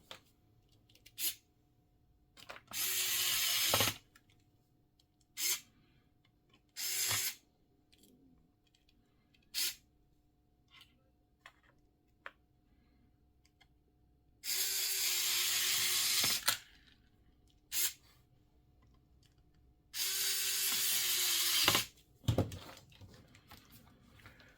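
Small cordless electric screwdriver motor running in short spurts, driving screws: four runs of half a second to about two seconds, each rising quickly to a steady whine, with a few brief taps and blips between.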